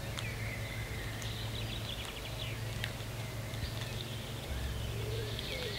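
Small songbirds chirping and calling in a forest, with a quick high trill about halfway through, over a steady low background rumble.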